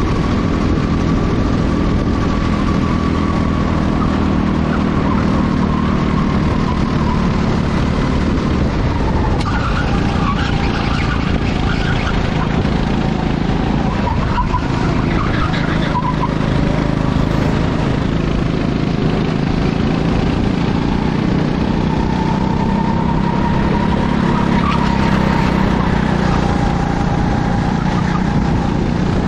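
Racing kart engines running hard through a race heat. The engine note sags and climbs slowly as the karts brake and accelerate, over a steady rush of noise.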